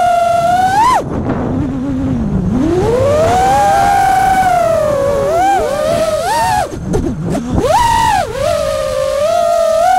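FPV freestyle quadcopter's brushless motors and propellers whining, the pitch following the throttle: a steady whine drops away sharply about a second in as the throttle is cut, climbs back over the next two seconds, wavers with quick throttle blips, dips twice near the three-quarter mark, then settles into a steady whine again near the end.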